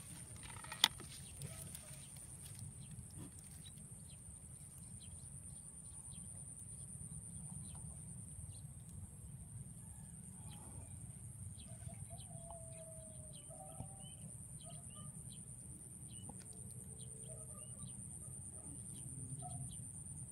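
Quiet rural field ambience with faint distant chickens clucking and calling over a steady low rumble and a thin high steady tone. A single sharp click comes about a second in.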